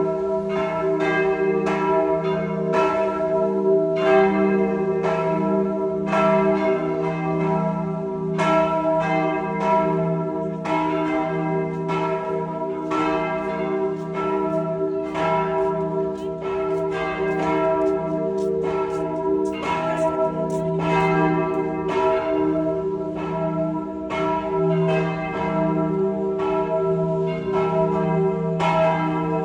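Church bells ringing a continuous peal, struck about twice a second, each stroke's tone ringing on under the next.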